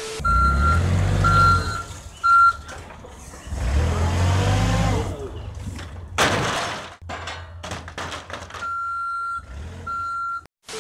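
Forklift reversing alarm beeping in repeated steady tones over a low rumble, with a short burst of crashing noise about six seconds in as its pallet load of sacks spills onto the floor.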